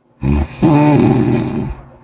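A person snoring loudly: a short snore about a fifth of a second in, then a longer snore of about a second whose pitch rises and falls.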